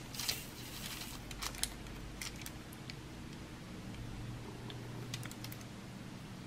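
Faint, scattered light clicks and ticks of diamond-painting work: a drill pen tapping up small resin drills from a plastic tray and pressing them onto the adhesive canvas, with a brief scratchy rustle of the plastic film just after the start.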